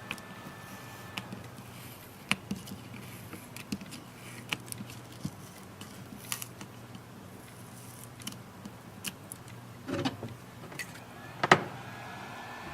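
Scattered small clicks and taps from tablet parts and tools being handled during a screen replacement, with a few knocks about ten seconds in and a sharper snap shortly after.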